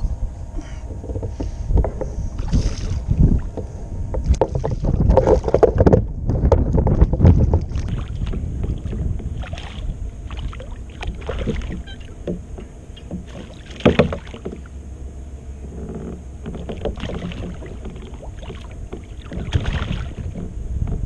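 Water splashing and sloshing beside a kayak while a hooked snook is played and reeled in, over a steady low rumble of wind and water. There is a sharp knock about two-thirds of the way through, and the fish thrashes at the surface near the end.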